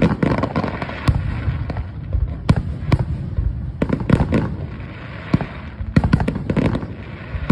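Fireworks going off: over a dozen sharp bangs at irregular intervals, with a steady noisy hiss between them.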